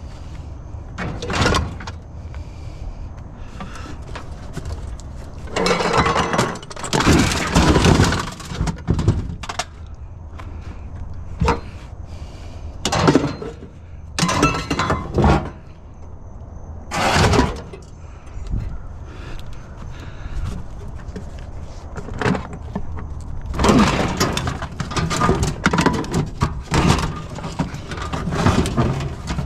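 Curbside scrap being handled and loaded: an irregular series of clattering knocks, bangs and rattles of hard objects, with a low steady rumble underneath.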